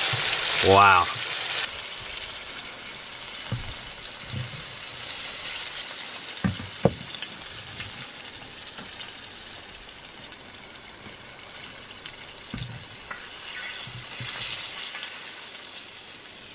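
Smallmouth bass fillets deep-frying in grapeseed oil: a steady bubbling sizzle, loudest for the first couple of seconds and then a little softer, with a few light clicks around the middle.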